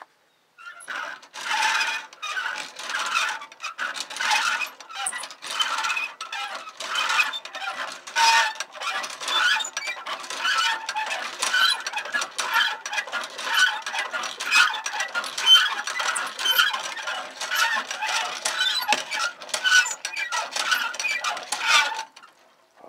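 An old metal hand-pump water fountain being worked: the pump handle and works squeak and clank with each stroke, about one and a half strokes a second. The pumping starts about a second in and stops near the end.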